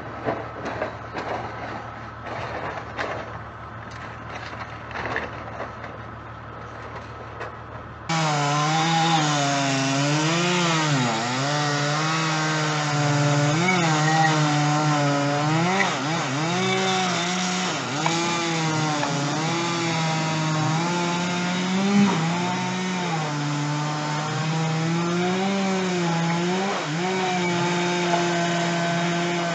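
A chainsaw cutting through a tree trunk, its engine pitch rising and falling over and over as the chain bites and frees in the wood. It comes in abruptly about eight seconds in, after a muffled, noisy stretch with scattered knocks.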